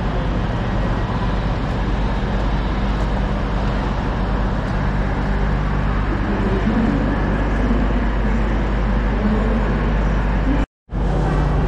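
Steady low rumble and hum of a vehicle in motion, heard from inside. The sound cuts out for a moment near the end.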